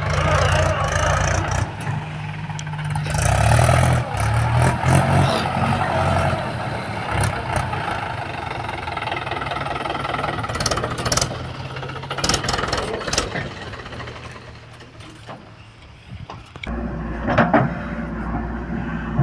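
Diesel engines of heavy earthmoving machinery running: a steady engine drone, with several sharp metallic knocks past the middle. The sound dips about three quarters of the way in, then a steady lower drone takes over near the end.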